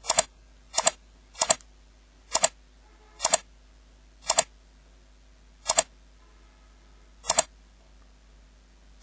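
Computer mouse button clicked about eight times, each a sharp double tick of press and release. The clicks come less often toward the end, repeatedly pressing a 'volume down' button in editing software.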